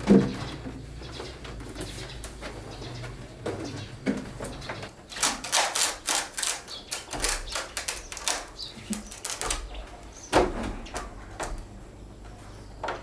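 A series of sharp clicks and knocks, clattering rapidly from about five seconds in until nearly ten, with heavier thumps at the start and just past ten seconds.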